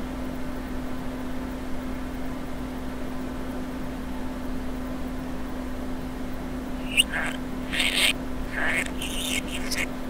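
Budgerigar chatter played backwards over a steady low hum: mostly the hum for about seven seconds, then a quick run of short high chirps and squawks near the end.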